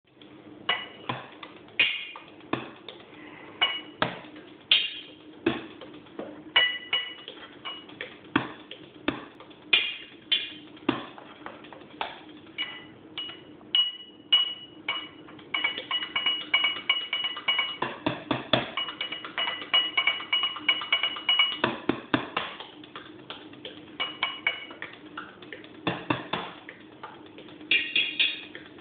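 Improvised drumming with thin wooden sticks on kitchen objects: sharp taps at an uneven pace, many ringing with a bright ping. The taps speed up into a fast, dense run in the middle.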